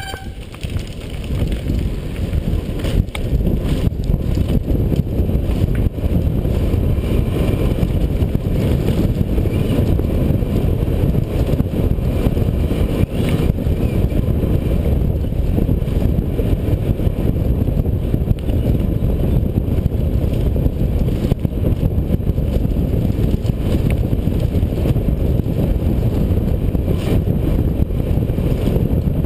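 Loud, continuous wind rush buffeting a helmet-mounted camera's microphone as a downhill mountain bike descends a dirt trail at speed, with scattered knocks and rattles from the bike over the rough ground.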